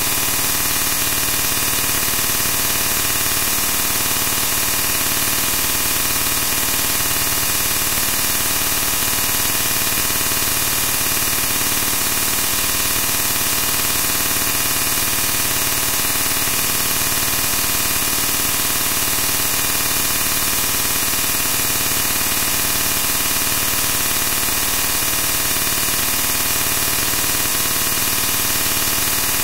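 Steady, loud static hiss, strongest in the high end, with faint fixed tones under it and no change or breaks at all.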